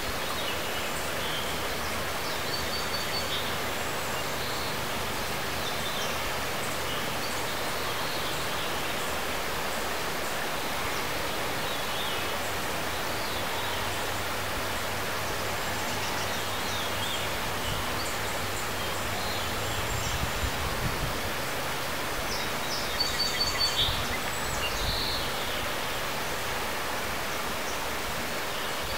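Outdoor ambience: a steady rushing noise, with brief high chirps scattered through it, like small birds calling. A few louder low rumbles come about two-thirds of the way through.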